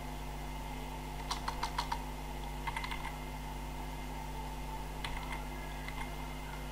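Computer keyboard keys tapped in short runs of quick clicks, a few keystrokes at a time, four times, while typing code. A steady low hum sits underneath.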